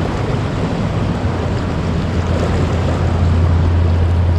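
Steady rush of turbulent, churning river water below a dam, with a steady low rumble underneath that grows stronger about a second in.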